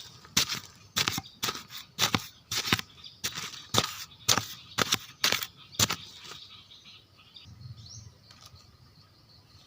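A run of sharp, irregular knocks or chops, about two a second, that stops about six seconds in.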